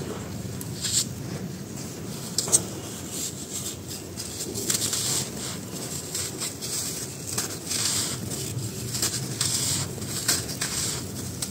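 Dry sand-cement chunks crunching and crumbling as they are squeezed in bare hands, a run of irregular gritty crackles, with one sharper crack about two and a half seconds in.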